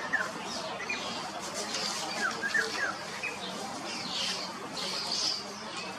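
Small birds chirping: short, quick chirps in a few scattered groups over a steady hiss.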